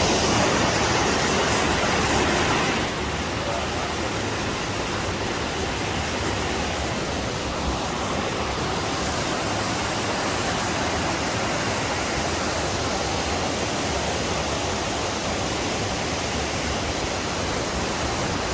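Steady rushing of a waterfall, a little quieter after about three seconds in.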